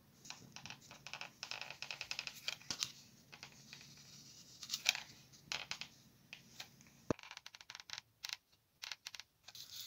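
Foamboard parts being handled, pressed together and glued with a hot glue gun: a dense run of scratchy rubbing and light clicks, turning to sparser separate clicks about seven seconds in.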